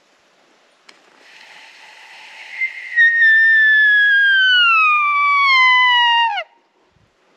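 A sika deer single call: a breathy rush building for about two seconds, then a loud whistle that slides slowly downward for about three seconds and drops off sharply at the end. A faint click comes just before it, about a second in.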